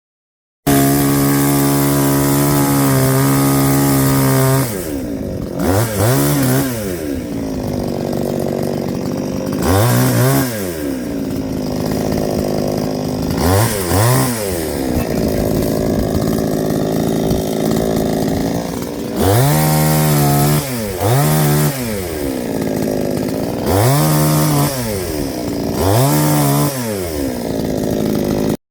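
Ryobi 45cc two-stroke chainsaw running at high revs for a few seconds, then dropping lower and being revved up and down about seven times. The engine cuts off near the end.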